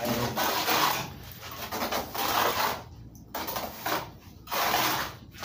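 A plaster trowel scraping and rubbing wet cement plaster across a concrete hollow-block wall, in about six rasping strokes of under a second each with short pauses between them.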